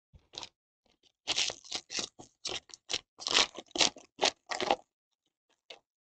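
Trading-card pack wrapper crinkling and tearing as it is ripped open by hand: a quick run of short crackles from about a second in, stopping near the five-second mark.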